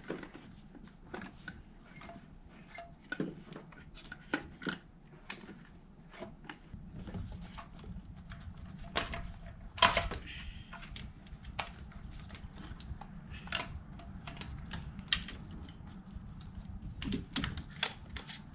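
Irregular clicks and taps of fuel injectors and the fuel rail being handled and fitted into place by hand. A low steady hum comes in about seven seconds in.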